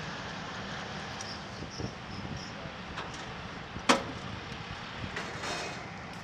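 Steady machinery hum with a few light metallic clicks and one sharp metallic clank about four seconds in, from handling of a GFU-8/E 30mm ammunition loading cart.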